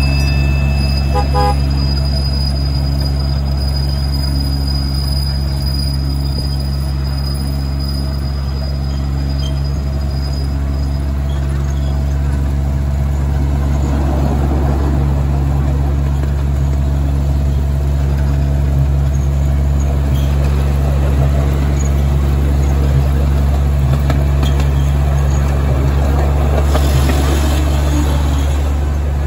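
Ride-on miniature train in motion: a steady low drone from the locomotive, with wheel and track noise.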